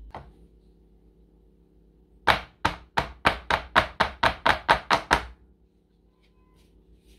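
A metal baking tray of spread vegetable paste knocked repeatedly against a wooden board, about a dozen sharp knocks at about four a second, settling the paste flat.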